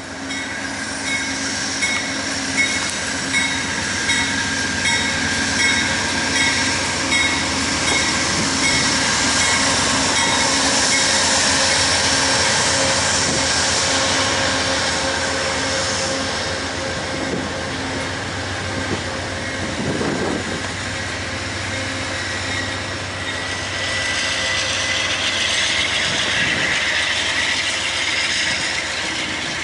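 Amtrak passenger train passing: a GE Genesis diesel locomotive runs by, followed by the steady rumble and wheel noise of bi-level Superliner cars rolling past. A regular clicking about every 0.7 s sounds for the first several seconds.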